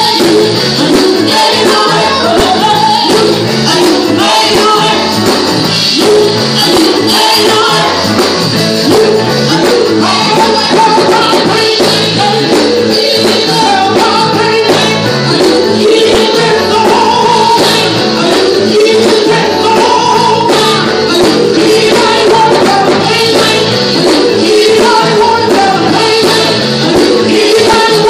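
A women's gospel vocal group singing live into microphones through a church sound system, backed by a band.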